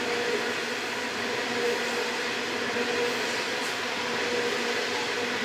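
Loaded coal hopper wagons rolling past on the rails: a steady rolling noise of wheels on track, with a faint wavering tone running through it.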